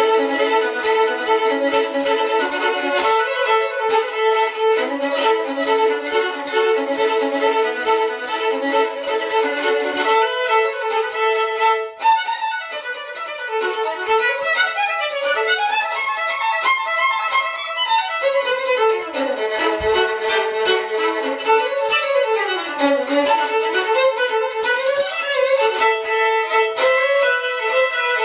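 Violin music: a fiddle tune with notes sliding up and down over a held lower note, with a short break about twelve seconds in.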